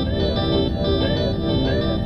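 Background music: a steady electronic track with held keyboard chords and short gliding synth notes.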